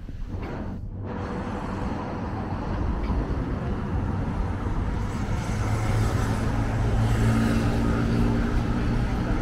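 Street traffic: a motor vehicle's engine and tyres growing steadily louder as it approaches, with a steady low engine hum strongest in the second half.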